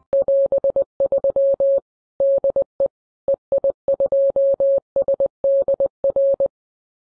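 Morse code sent as a single steady mid-pitched beep, keyed on and off in short and long elements grouped with gaps, like a CW sign-off. It stops about half a second before the end.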